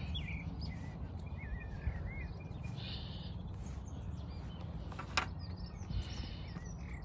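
Small birds chirping and singing in short wavy phrases over a steady low rumble of wind on the microphone, with a couple of sharp clicks near the end.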